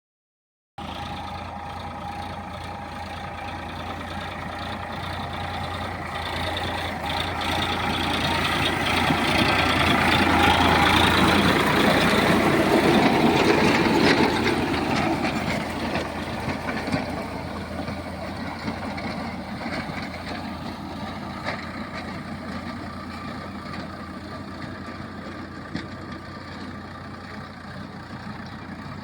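Tractor engine running steadily while dry ploughing, growing louder to a peak about halfway through and then fading back down.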